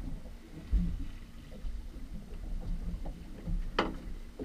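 Fishing boat at sea: a steady low rumble with a faint steady hum under it. A knock comes about three-quarters of a second in, and a short sharp sound comes near the end.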